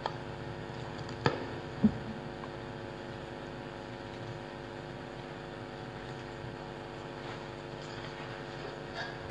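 Steady electrical hum from a microphone and sound system, with two sharp knocks a little after a second in as objects are handled on the table.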